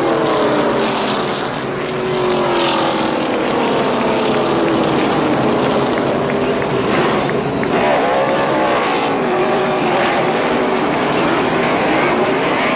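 NASCAR Sprint Cup stock cars' V8 engines running on pit road, several at once, their pitch sliding down over the first few seconds, then rising and falling again about eight seconds in and near the end as cars pull away.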